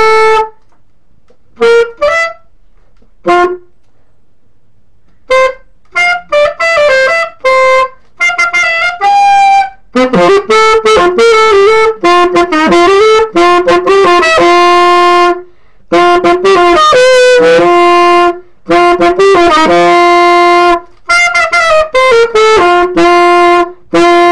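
Solo saxophone playing a melody with no accompaniment. It starts with short detached notes separated by pauses, then from about five seconds in runs into continuous phrases with several long held notes.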